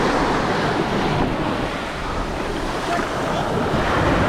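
Surf washing up the beach, with wind buffeting the microphone.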